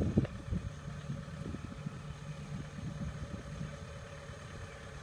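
Engine of a large farm machine running steadily as it moves off along a dirt track, a low even hum. A couple of low thumps sound right at the start.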